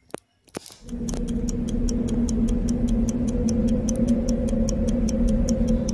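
Fast, even clock ticking at about five ticks a second over a steady low hum, starting about a second in.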